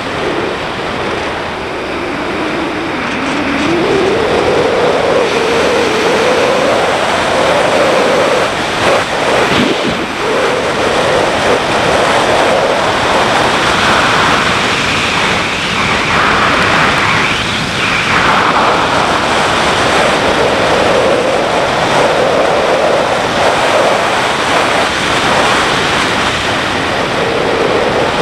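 BMW G650GS motorcycle's single-cylinder engine running under heavy wind rush on the microphone while riding. The engine note rises about three seconds in as the bike accelerates.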